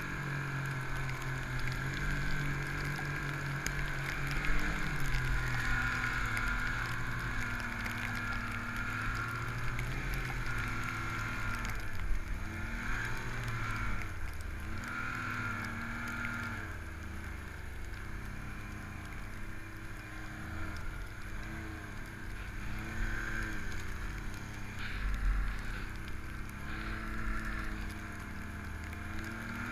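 Snowmobile engine running under load while ploughing through deep powder snow, its revs rising and falling again and again.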